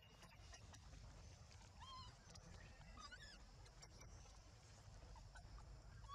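Faint, short, wavering squeaks of a newborn macaque: one about two seconds in, another about three seconds in and a third near the end, over a steady low rumble.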